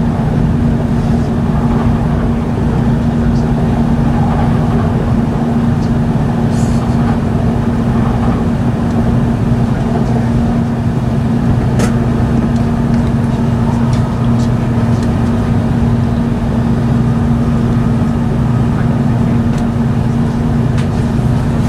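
Running noise inside the cabin of an E5 series Shinkansen: a steady rumble with a constant low hum, and a sharp click about halfway through followed by a few lighter ticks.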